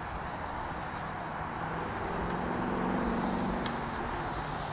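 Road traffic: a steady wash of passing cars, with one vehicle's engine hum swelling to a peak about three seconds in and then easing off.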